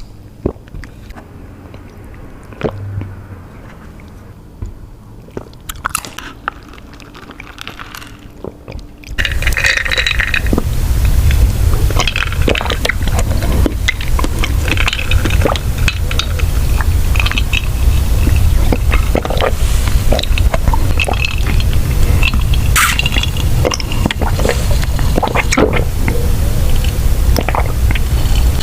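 Close-miked eating sounds of boba tea: chewing and sipping with scattered wet clicks. About nine seconds in it cuts to a much louder passage of dense crackling chewing over a low rumble.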